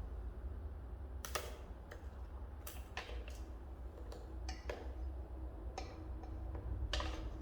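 Handling noises: about six scattered sharp clicks and knocks over a steady low rumble.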